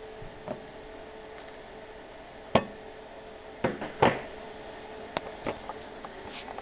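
A few sharp clicks and knocks from small tools and parts being handled on a work surface, with the loudest about two and a half and four seconds in, over a steady low hum.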